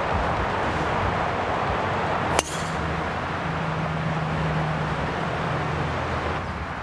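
A golf driver striking a teed-up ball once, about two and a half seconds in: a single sharp crack with a brief ring. Steady outdoor background noise runs underneath.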